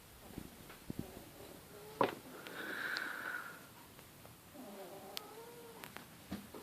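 A sleeping Bichon Frise cross puppy snoring: a breathy snore about three seconds in, then a thin, wavering whistling tone near the end, with a few faint clicks.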